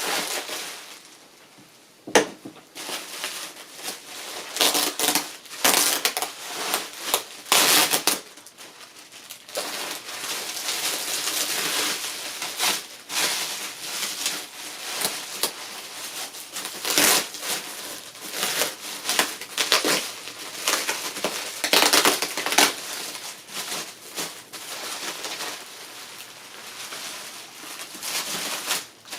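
Packing material crinkling and rustling in irregular bursts as typewriter carriages are unwrapped by hand, with a sharp knock about two seconds in.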